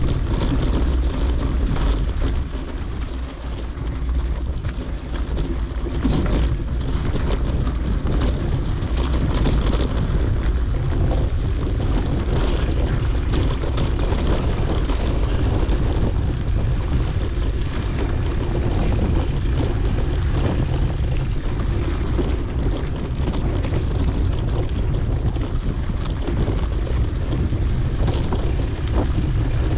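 Wind buffeting a GoPro's microphone on a moving mountain bike, a steady low rumble. Under it are the noise of tyres rolling on a dirt road and frequent small clicks and rattles.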